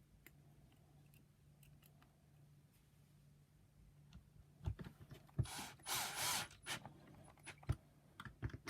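Plastic parts of a Shark vacuum power nozzle being handled and fitted together by hand: quiet at first, then from about halfway through a series of clicks and knocks with a brief scraping rustle.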